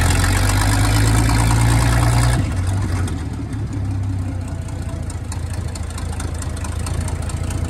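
1924 Maxim fire engine's Buda inline-six flathead engine running while the truck drives slowly. It is louder for the first two seconds or so, then drops to a quieter, steady running note.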